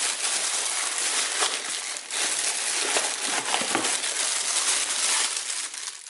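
Plastic packaging crinkling and rustling as it is handled and unwrapped, in two long stretches with a short break about two seconds in.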